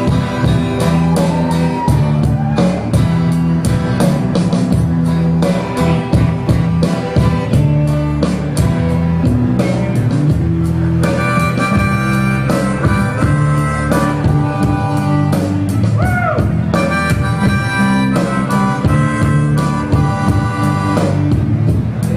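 Live band playing a blues-rock tune, with a harmonica played into the vocal microphone, bending some notes, over acoustic guitar, electric guitar and drums keeping a steady beat.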